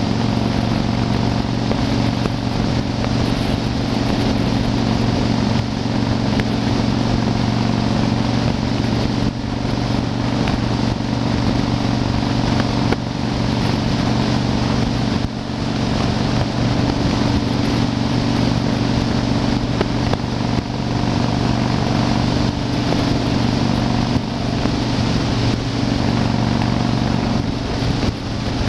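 Yamaha Wildstar XV1600's air-cooled V-twin engine running steadily at highway cruising speed, with wind rushing past the rider.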